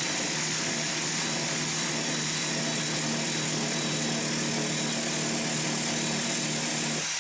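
Small handheld electric belt sander running steadily against a wooden boat stem, shaping the horn, a motor whine over the hiss of the belt on the wood. It switches off just before the end.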